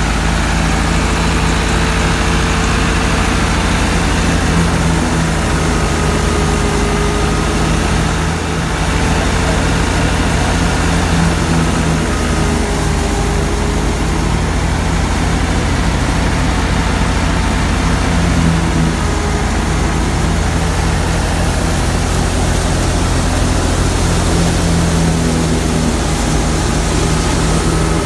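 Massey Ferguson 385's four-cylinder diesel engine running steadily under load as it drives a wheat thresher through the PTO shaft. The tractor and the threshing machine make one continuous loud mechanical drone.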